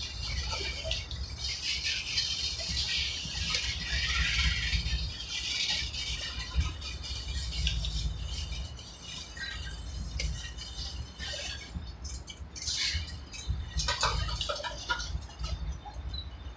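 Freight cars rolling past on the rails: a steady low rumble of the wheels, with higher rattling and scattered sharp clicks and clanks from the cars.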